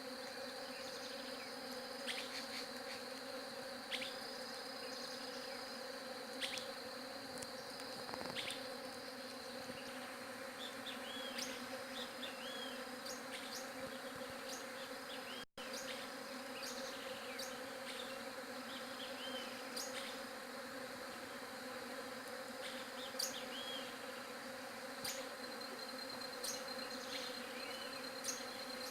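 Many bees buzzing together in a steady, continuous hum, with short high chirps and ticks scattered over it.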